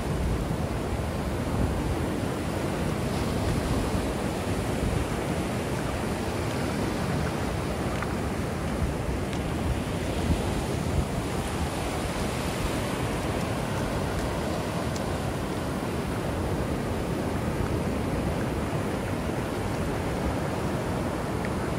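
Ocean surf breaking and washing ashore in a steady, even rush, with wind buffeting the microphone.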